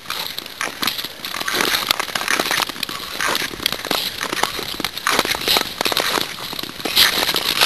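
Ice skates pushing and gliding on clear natural ice: a scraping hiss that swells with each stroke about every second and a half, full of sharp clicks and crackles.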